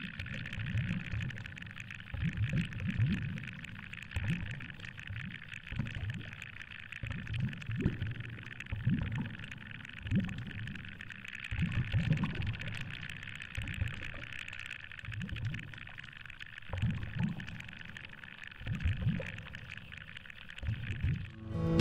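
Water surging past a lure-mounted action camera underwater as the lure is pulled through the sea: low whooshing surges roughly once a second over a steady hiss.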